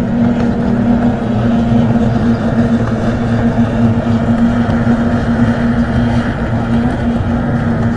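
Racing motorboat engine running steadily at one unchanging pitch, with no let-up or change in speed.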